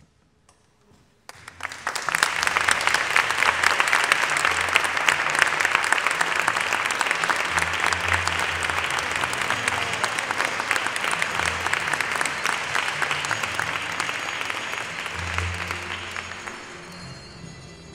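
Audience applauding, starting suddenly about a second in and dying away near the end, with low music notes underneath.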